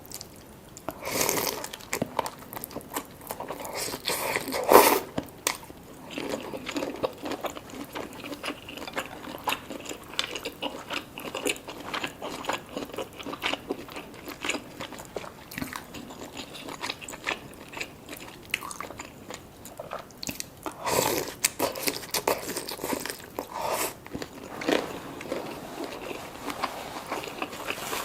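Close-miked eating sounds: a person biting and chewing seafood-boil food. Steady small wet chewing clicks run throughout, with several louder crunching bites, the loudest about five seconds in and another cluster near the end.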